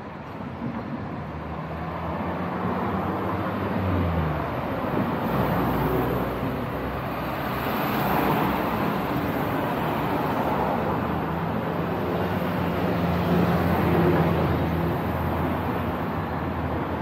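Road traffic: motor vehicles passing with a low engine hum, the rush of engines and tyres building over the first few seconds and staying loud.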